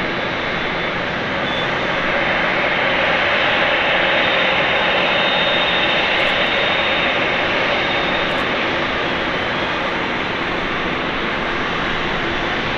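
Boeing 747-8's four GEnx-2B turbofan engines running at taxi power: a steady jet hiss and rumble that swells a little a few seconds in as the airliner turns and rolls past, with a faint high whine about five seconds in.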